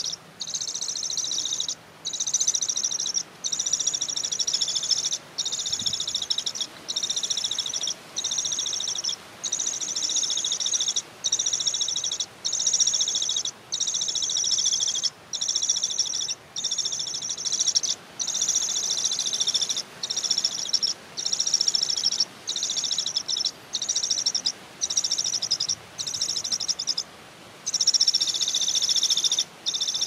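Parakeet chicks begging at the nest: a loud, high, rasping call repeated in runs of about a second, broken by short pauses.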